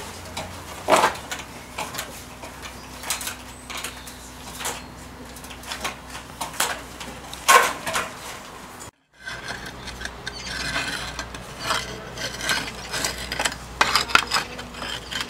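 Irregular knocks and clatters of boots on an aluminium ladder as a worker climbs it. About nine seconds in this changes to frequent small clinks and scrapes of broken roof tiles being handled.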